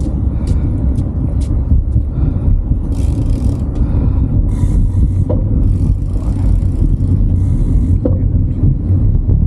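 Wind rumbling on the microphone of a camera riding on a moving bicycle, with patches of higher hiss from about three seconds in and a few light clicks in the first second and a half.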